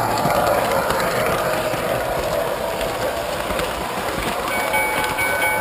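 MTH O-gauge model train running along the layout track: a steady rolling rumble of wheels on rail, with a few steady tones from the train's sound system joining about four and a half seconds in.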